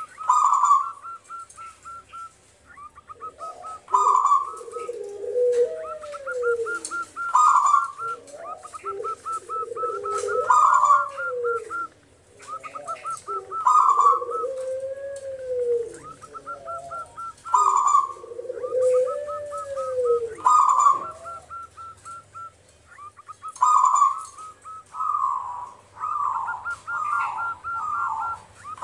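Zebra dove (perkutut) singing its cooing song over and over. Each phrase is a quick run of short notes, then a loud note and a lower rolling coo, coming about every three to four seconds, with phrases bunching closer together near the end.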